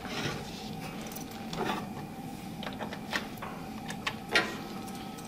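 Light handling noises from a power cord being plugged in: a few short clicks and rattles, the clearest about three and four seconds in, over a faint steady room hum.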